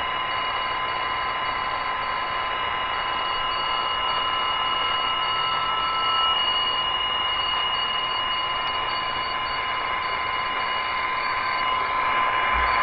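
Grundig G5 shortwave receiver tuned to the 20-metre PSK31 digital frequency, its speaker putting out several steady data tones over band hiss. A higher tone beeps on and off evenly.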